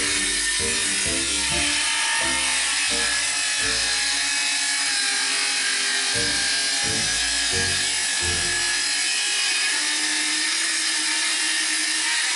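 Steady rasping noise of a tool working wood, over background music with a bass line of changing notes.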